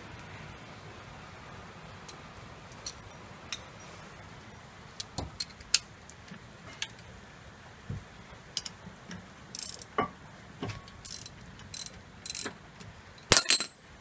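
Irregular metallic clicks and clacks of new brake pads being worked into a disc-brake caliper, with the loudest clatter near the end, over a steady hiss of rain.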